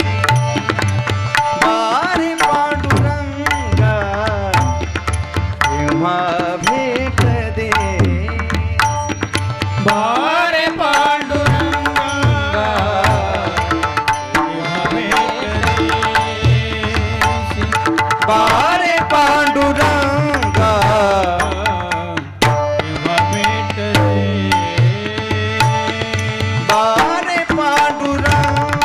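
Bhajan music: tabla and mridang drumming with deep bass strokes, under steady held drone tones and a melody that glides up and down.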